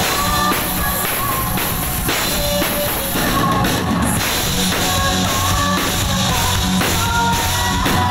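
Live rock band playing loud, with a drum kit and a woman singing long held notes into a microphone.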